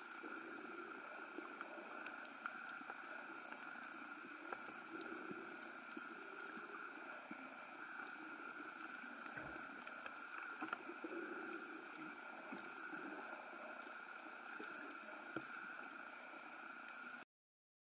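Underwater ambience picked up by a submerged camera: a steady faint hum with scattered faint clicks. It cuts off suddenly near the end.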